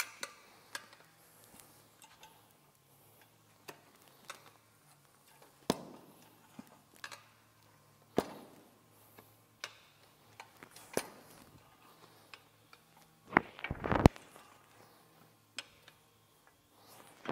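Metal tire irons clicking and knocking against a spoked dirt-bike wheel rim as the tire bead is levered on. Scattered single taps, with a louder cluster of knocks about thirteen to fourteen seconds in.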